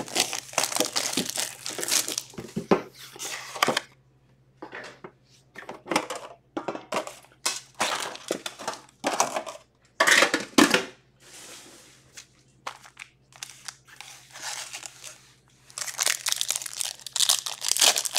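Plastic wrapping and foil hockey-card packs crinkling and tearing as they are opened, in irregular bursts with short pauses.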